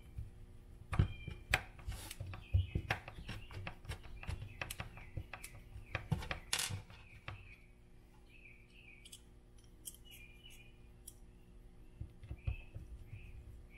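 Small plastic and metal clicks and taps of a hex driver working screws into an RC truck's plastic bumper and chassis, coming quickly for about seven seconds, then thinning out. Short high chirps, like a small bird's, recur in the quieter second half.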